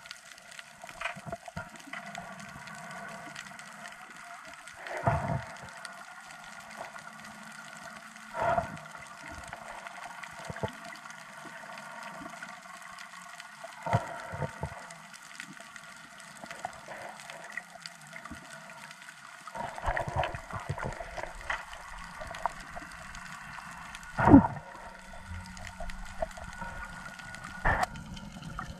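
Underwater sound picked up by a submerged camera: water gurgling and sloshing in short surges every few seconds, the loudest about 24 seconds in, over a steady hum of several tones.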